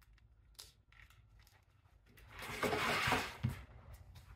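Soft clicks of a Velcro strap being pressed onto the chair frame, then about two seconds in a loud rustle of the velvet cushion cover being handled, with a few light knocks from the chair.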